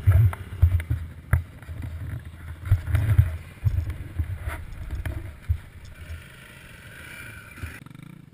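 Rumbling buffeting and knocks from a jostled helmet-mounted action camera, with several sharp knocks in the first few seconds. After about four seconds it settles to a quieter rustle.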